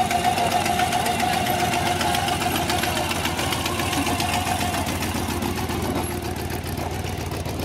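Supercharged hot-rod engine of a black 1950s saloon running as the car rolls slowly past, with a steady whine over it until about five seconds in. It gets a little quieter near the end as the car moves away.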